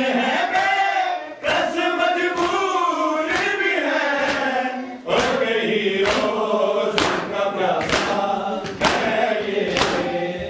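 Men's voices chanting a Muharram lament together, with rhythmic matam chest-beating, open-hand strikes about two a second in time with the chant. There is a brief drop about five seconds in, after which the strikes come more sharply and regularly.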